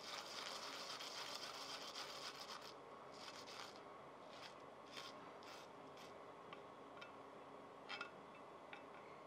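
A garlic clove grated on a flat stainless steel grater: a fast run of rasping scrapes, then a few slower separate strokes, and a few light ticks near the end.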